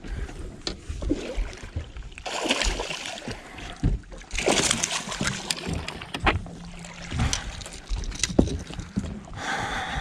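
Water splashing and sloshing, with scattered knocks and clicks against a fishing boat, as a bass is landed. Two noisy rushes of splashing come in the first half, and a steady low hum runs under the second half.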